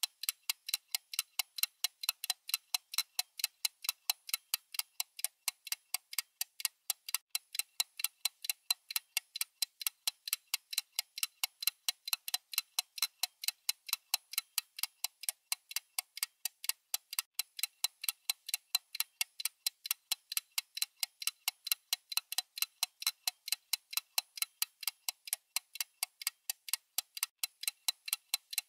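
Clock ticking sound effect: fast, even ticks, about three or four a second, with no pause.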